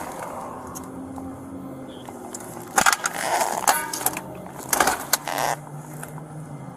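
Steady low hum of vehicle noise, with a series of loud rustling and clattering handling noises from about three to five and a half seconds in, one of them a quick rattle.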